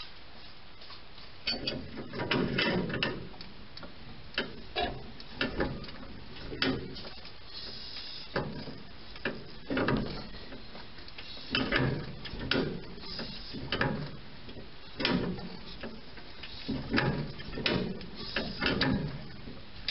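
Sunbeam Alpine four-cylinder engine being turned over slowly by hand with a crank handle: uneven mechanical clicks and clunks from the crank handle and the exposed solid-lifter valvetrain, a burst roughly every second.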